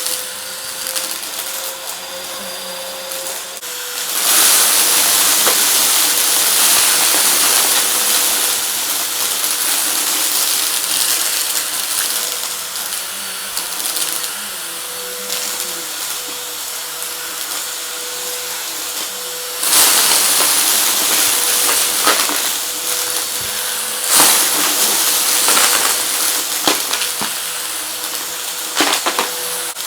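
Vacuum cleaner running and sucking up hard debris, which clicks and rattles as it goes through. The suction noise gets louder about four seconds in and again about twenty seconds in.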